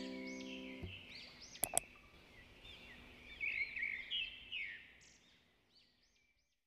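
Small birds chirping in quick, repeated arching calls, with the last of a strummed guitar chord dying away in the first second and two sharp clicks a little under two seconds in. The chirping stops about five seconds in.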